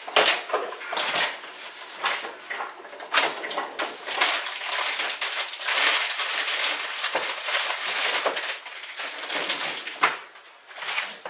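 Crinkling and rustling of plastic packaging, most likely a bag of cheese being opened and handled, loudest and most continuous through the middle, with a few sharp knocks about three seconds in and near the end.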